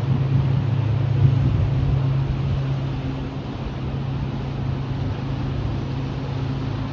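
Steady low hum of the lake freighter Great Republic's engines and machinery as the ship passes close by, over a hiss of wind and moving water. It eases a little after about two seconds.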